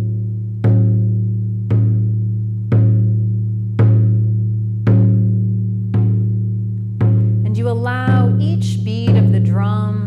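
Hide frame drum beaten with a stick in a slow, steady meditation rhythm, about one stroke a second, each stroke a low ringing tone that fades before the next. Near the end a wordless voice rises and bends in pitch over the drumming for a couple of seconds.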